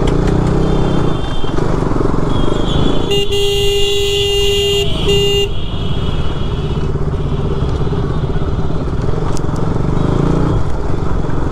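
KTM RC 200's single-cylinder engine running at low speed in street traffic. About three seconds in, a vehicle horn sounds one long honk and then a short one.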